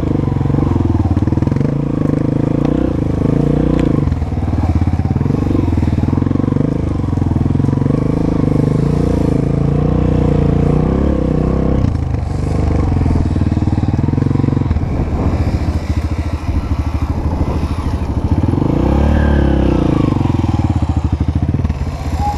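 Honda CRF four-stroke single-cylinder dirt bike engine running while riding a trail, its pitch shifting up and down with the throttle, with one clear rev up and back down near the end.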